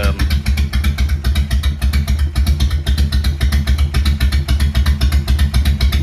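Harley-Davidson FXR V-twin idling steadily with an even, rapid pulse. It is warming up from cold, running its stock carburettor and ignition through aftermarket exhaust pipes.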